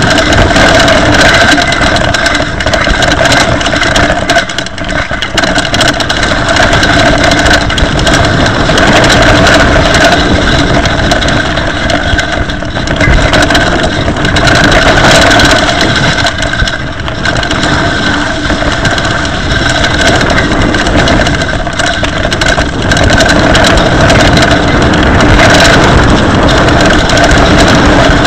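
Mountain bike being ridden along a rough trail: a continuous loud rush of tyre and trail noise with frequent knocks and rattles, over a steady grinding drone from the disc brakes, grit grinding away at the brake pads and discs and wearing the pads down.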